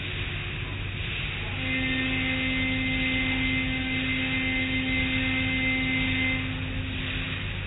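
Automatic car wash machinery running with a steady rumble of water and brushes; a steady hum comes in about a second and a half in and stops near the end.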